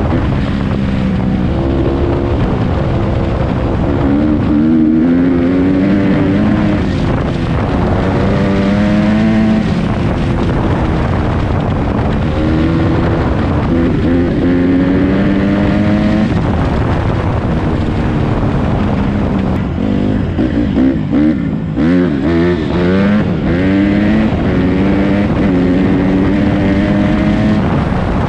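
Honda CRF150RB's 150cc four-stroke single-cylinder engine under throttle while riding, pitch rising through each gear and dropping at each upshift. For a few seconds past the middle the engine note turns choppy as the throttle goes on and off.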